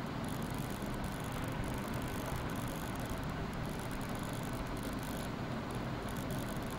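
Steady hiss with a low hum underneath, unchanging throughout: background noise from an open microphone.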